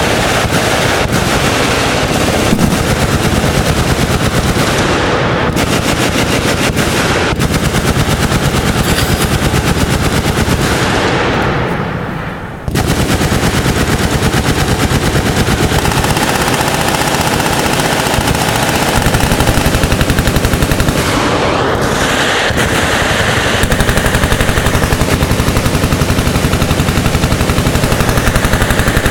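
Dense, continuous automatic gunfire from machine guns, shots overlapping into an unbroken barrage. It eases briefly about twelve seconds in, then resumes at full strength.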